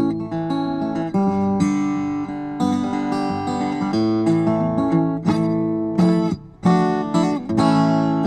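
Solo steel-string acoustic guitar playing an instrumental piece, picked chords with ringing notes; the sound drops away briefly about six and a half seconds in before the playing resumes.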